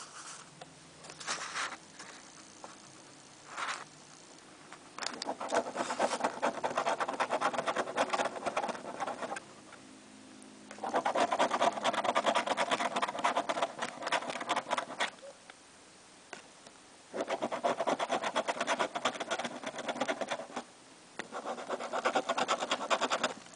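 Scratch-off lottery ticket being scratched: a few short scrapes, then four long bouts of rapid scratching strokes with short pauses between them.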